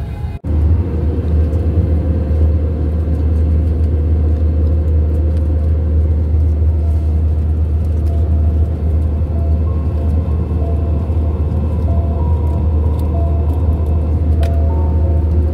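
Steady low drone of an airliner cabin in flight: engine and airflow noise. It cuts out for an instant about half a second in.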